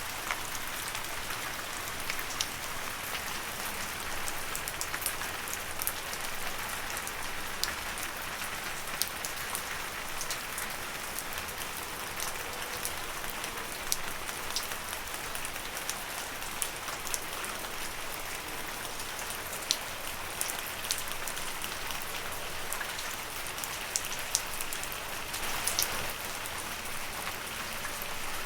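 Steady rain falling on leaves: an even hiss with the sharp taps of single drops scattered all through it.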